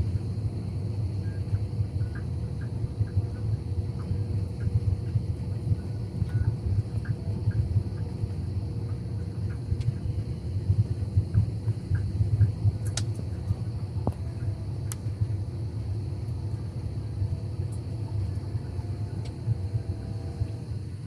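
Steady low rumble inside a jet airliner's cabin on final approach, engine and airflow noise at an even level with a faint steady hum above it.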